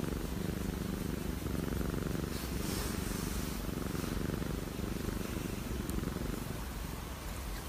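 Calico cat purring steadily, a sign of contentment, while a hand scratches its cheek.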